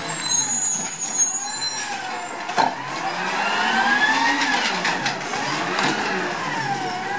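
Peterbilt 320 automated side-loader garbage truck running as it moves along: its engine pitch rises and falls several times. A thin high squeal, typical of brakes, is heard in the first couple of seconds.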